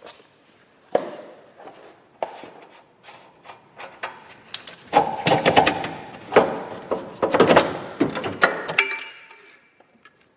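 Metal knocks and clanks as a rear shock absorber is worked out of its mount and handled: one sharp thud about a second in, scattered knocks, then a dense run of clattering, ringing metal knocks from about five to nine seconds in.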